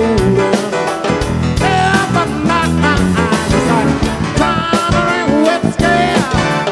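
Live rock band playing an upbeat piano-led song, with piano, drum kit and a male lead vocal over a steady driving beat.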